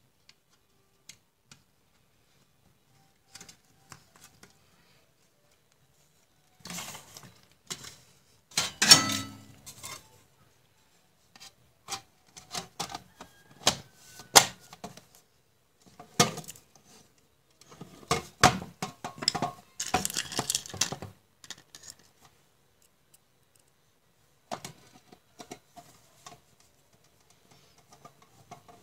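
Computer power supply's sheet-steel case being handled and closed up: scattered clicks, knocks and metal rattles in irregular clusters, the loudest clatter about nine seconds in.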